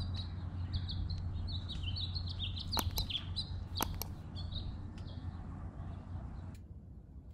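Small birds chirping rapidly in quick short high notes, stopping about five seconds in, over a steady low hum, with a few sharp clicks around three and four seconds in.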